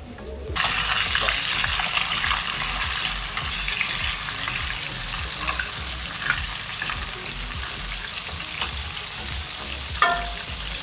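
Masala-coated fish frying in hot oil in a pan: a steady sizzle that starts about half a second in, with the pieces being turned with a metal knife blade.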